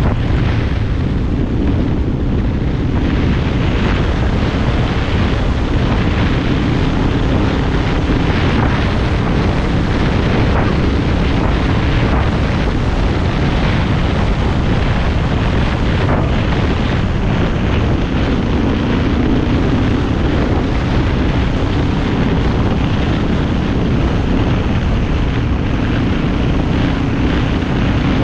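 Vehicle driving on a dirt road: a steady loud rumble with an engine drone under it, faint knocks and rattles from the rough track, and wind buffeting the microphone.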